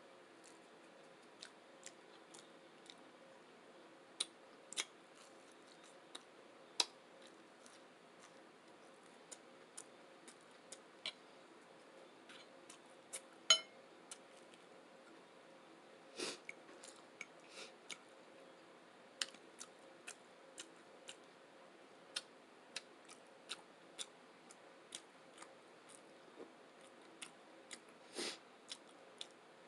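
Close-miked chewing with the mouth: irregular wet clicks and smacks, a few of them louder, over a faint steady hum.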